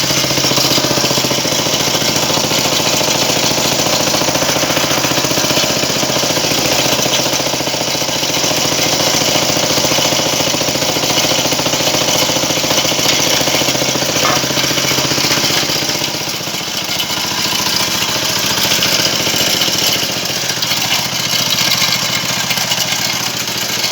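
Small engine running steadily with a fast, even beat, driving the winch while its steel wire rope is wound onto the drum.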